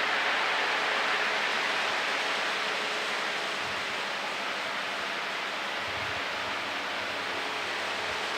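Sonnenkönig three-speed household fan running on its first, lowest speed: a steady rush of air from the blades, with a faint hum underneath that fades after the first few seconds.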